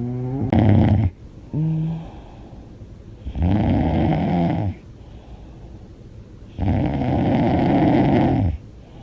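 A woman snoring loudly with her mouth open: three long snores about three seconds apart, each lasting one to two seconds, with a short pitched breath sound between the first two.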